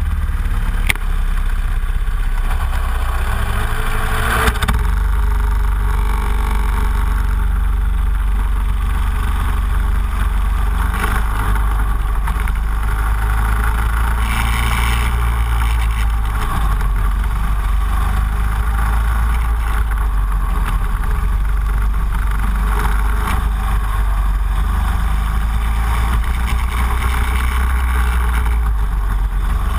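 Racing kart engine running hard at speed, its note rising and falling with throttle through the corners, with heavy wind rumble on the onboard microphone.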